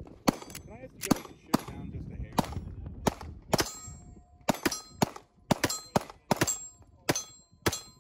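Springfield Armory Prodigy 9mm double-stack 1911 pistol fired in a steady string of shots, about two a second, with steel targets clanging and ringing briefly after hits.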